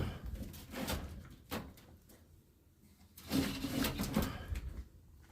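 Knocks, clatter and scraping of fuel cans being picked up and moved about on a shelf.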